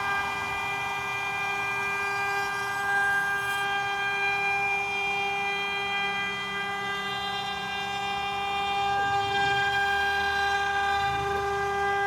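CNC router spindle running with a steady high-pitched whine.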